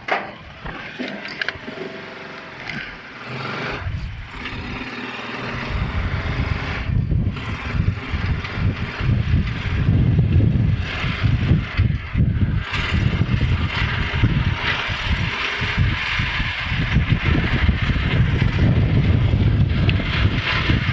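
Small motorcycle engine of a Philippine tricycle (motorcycle with sidecar) running under way, with heavy road and wind rumble; it grows louder about six seconds in.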